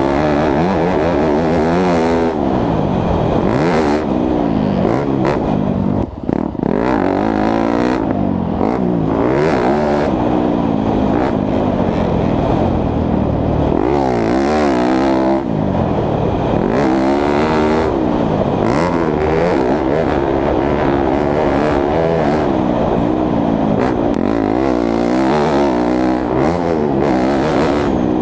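2017 Yamaha YZ250F four-stroke single-cylinder motocross engine under hard riding, its pitch rising and falling over and over as the throttle is opened and closed and the gears change. There is a brief drop-off about six seconds in.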